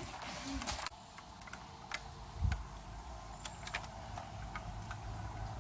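Faint, scattered light clicks and taps, with one dull thump about two and a half seconds in.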